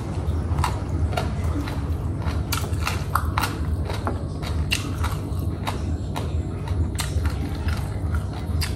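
A person chewing a mouthful of rice and boiled eggplant, with scattered sharp mouth clicks and smacks at irregular intervals over a steady low rumble.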